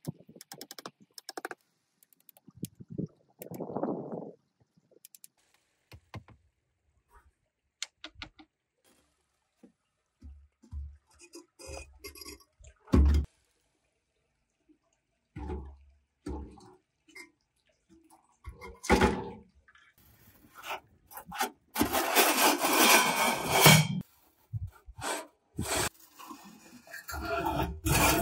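Scattered clicks, knocks and scrapes from hands-on work on a small model build, with a louder stretch of rushing noise about two-thirds of the way in and again near the end.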